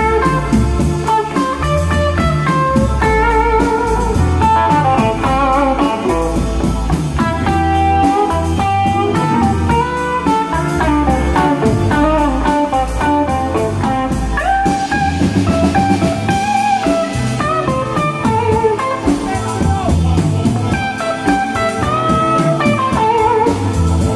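Live electric blues band playing, led by a semi-hollow-body electric guitar picking single-note lines with bent, wavering notes, over bass and drums.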